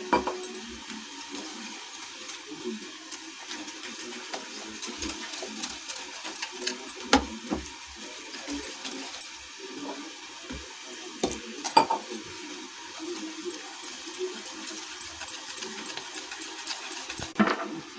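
Hand mixing flour, yogurt and water into a thick batter in a ceramic bowl: faint, wet stirring and squishing, with a few sharp clicks against the bowl.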